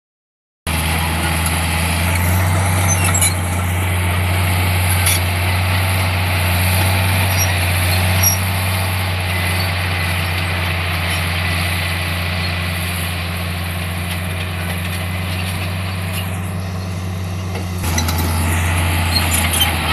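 Diesel engine of a heavy earthmoving machine running steadily with a deep, even drone, with a few faint knocks. It gets slightly louder near the end.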